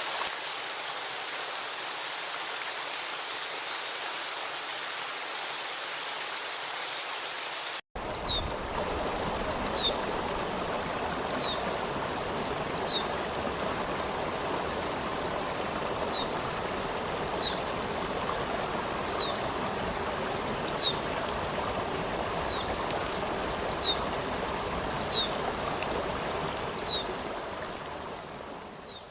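Waterfall, rushing water as a steady even hiss. About eight seconds in it cuts abruptly to a fuller, deeper recording of rushing water, over which short high falling chirps repeat every second or two; the sound fades out near the end.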